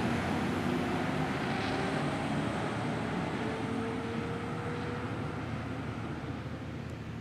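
Fire engine driving away, its engine and tyre noise slowly fading as it recedes.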